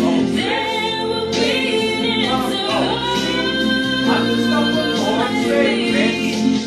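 A song playing back: a singing voice over a full music backing, some notes held long.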